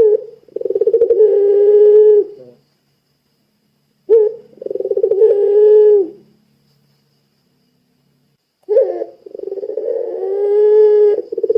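Puter pelung dove cooing: three long calls, each opening with a short higher note and then a held coo with a fast quaver, separated by pauses of about one and a half to two seconds.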